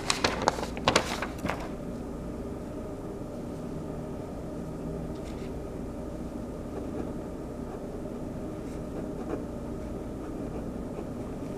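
A quick cluster of clicks and rustles, then a steady low mechanical hum.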